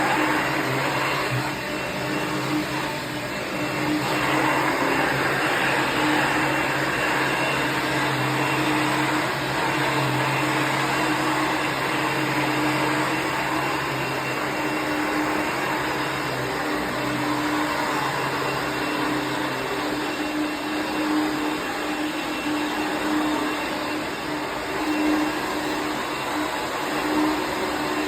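Dirt Devil Plus upright vacuum cleaner, made by Royal, running steadily with a constant motor hum.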